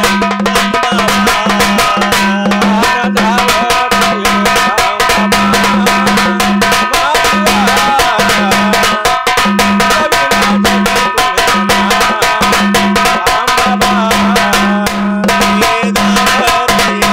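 A sambal, the Maharashtrian pair of stick-played drums, played in a fast, continuous rhythm with a curved stick on one head and a straight stick on the other. A deep ringing drum tone comes and goes in stretches over the rapid strokes.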